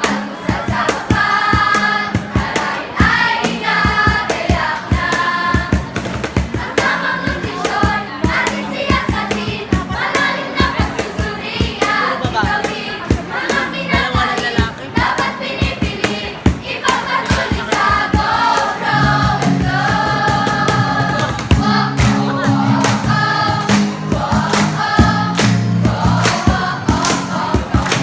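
A group of voices singing a nutrition jingle in choir-like harmony over accompaniment with a steady beat; the bass grows fuller about two-thirds of the way through.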